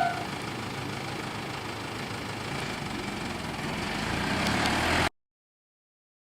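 A level-crossing warning bell stops right at the start. A road vehicle's engine and tyre noise follows, growing steadily louder as it approaches, until the sound cuts off abruptly about five seconds in.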